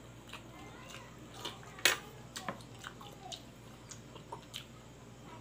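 A person chewing a mouthful of pig intestine kilawin, with small wet mouth clicks and smacks and one sharp, loud click about two seconds in.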